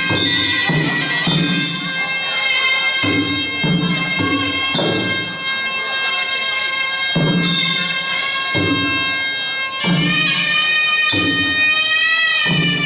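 Traditional Khmer boxing music: a sralai, a reed oboe, plays a sustained, wavering melody over regular drum beats.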